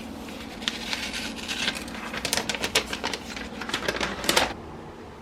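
Cardboard packaging of a Dyson Airwrap box being opened and handled: a run of clicks, taps and short rustles that stops about four and a half seconds in.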